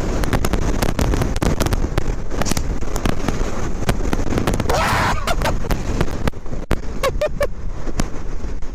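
Strong wind gusts buffeting the microphone, a low rumble with a rapid crackle of pops throughout and a louder rush about halfway through.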